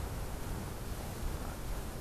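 Wind rumbling on the microphone with a steady hiss.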